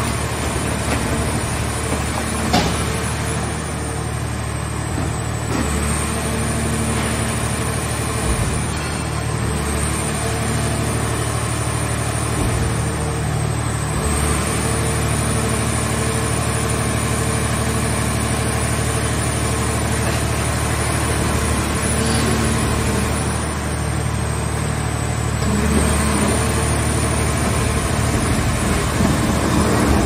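Hydraulic power unit of a scrap car baler running steadily: a low mechanical hum with a faint high whine that dips in pitch and recovers several times as the press lids work. One sharp knock about two and a half seconds in.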